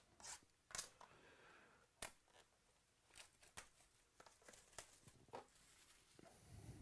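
Faint, scattered rustles and light clicks as a trading-card box is opened and its packaging handled.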